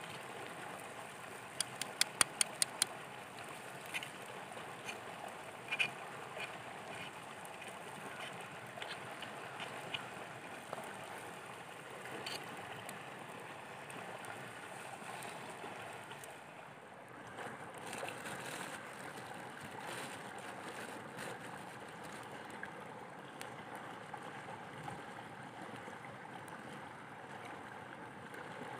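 Steady rush of a nearby stream, with a quick run of sharp clicks about two seconds in as a metal spatula scrapes and taps on the hot cooking stone, then scattered small crackles from the wood fire.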